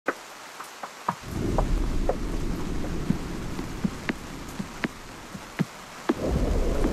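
Steady rain falling, with individual drops ticking sharply on a nearby surface. A low rumble swells about a second in, fades, and rises again near the end.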